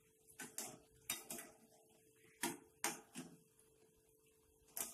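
Metal slotted spoon clinking and scraping against a metal kadai as samosas are turned in hot oil: several sharp clinks spread through, the loudest a pair near the middle.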